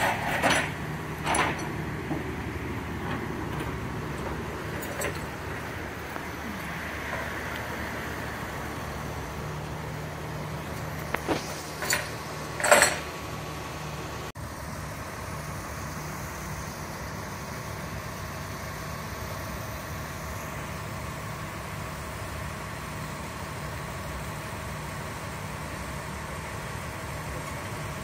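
An engine idling steadily, with a few short, louder sharp sounds about a second in and again around twelve seconds in, the last of them the loudest.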